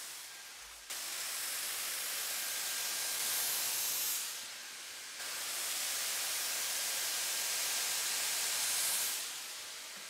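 Dyson Airwrap with its soft smoothing brush attachment blowing air through the hair: a steady rushing hiss. It comes on abruptly about a second in, drops for about a second near the middle, then runs again and fades near the end.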